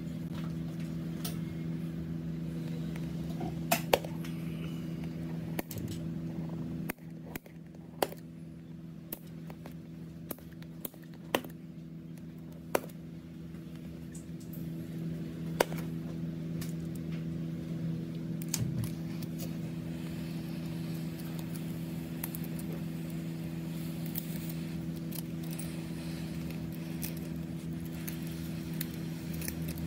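Small metal repair tools clicking and tapping against a smartphone, with about eight sharp clicks mostly in the first half. A steady low hum runs underneath.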